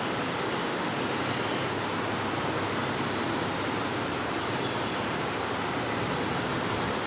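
Steady, even rush of air from a running fan.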